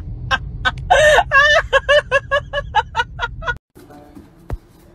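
A rapid run of short, high-pitched vocal calls, about five a second with a warbling stretch about a second in, over the steady low rumble of a car. It cuts off sharply, leaving a quieter room and a single light tap near the end.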